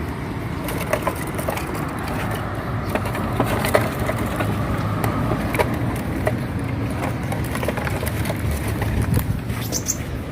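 Steady low rumble of street traffic, with scattered light clicks and knocks throughout.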